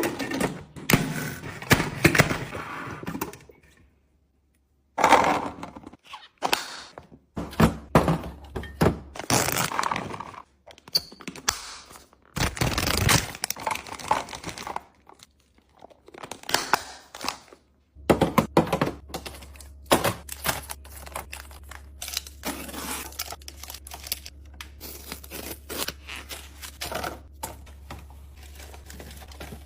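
Groceries and containers being handled and set into a fridge: repeated thunks and knocks of items put down, with crinkling and tearing of plastic packaging, in short bursts broken by sudden cuts. A steady low hum runs underneath in the second half.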